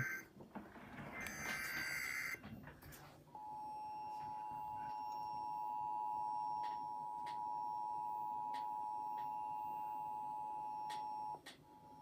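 SAGE 1822 EAS Endec sending a test alert. The first couple of seconds are a warbling data-tone burst, the end of the digital SAME header. About three seconds in, the EAS two-tone attention signal starts: two steady tones sounding together for about eight seconds, then cutting off. Just before the end a single steady tone begins.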